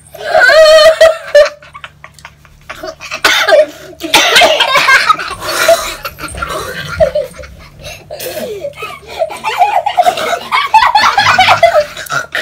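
Young people laughing hard in repeated fits of laughter, with a short pause a little under two seconds in.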